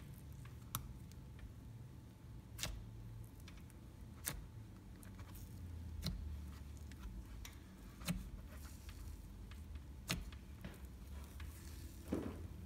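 Thick cloud dough slime being handled. It gives a sharp click or pop about every two seconds over a faint low hum.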